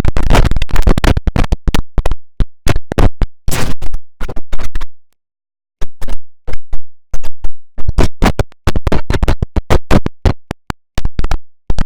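A heavily effects-processed computer system sound, the IBM OS/2 Warp 3 shutdown sound, chopped into rapid stuttering bursts like a glitched or scratched sample. It breaks off for a moment about five seconds in, then the stutter resumes.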